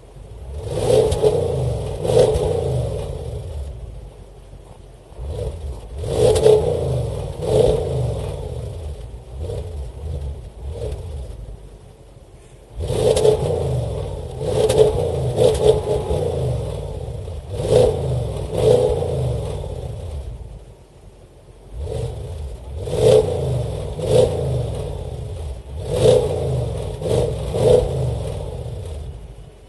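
Audi S7 Sportback's 4.0-litre twin-turbo V8 exhaust, revved repeatedly at standstill: sharp throttle blips, mostly in pairs with a longer run of revs in the middle, each dropping back to idle. The revs are held below 4000 rpm by the standstill rev limiter.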